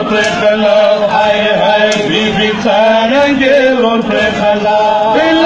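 Male voices chanting a Shia mourning lament (nauha) for matam, a melodic line that rises and falls in repeated phrases, with scattered slaps of chest-beating.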